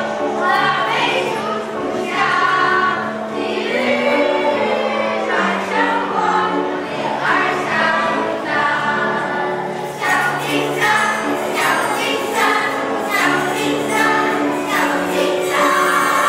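Children's choir singing a song in Mandarin, holding notes that step up and down in pitch; a steady beat joins about ten seconds in.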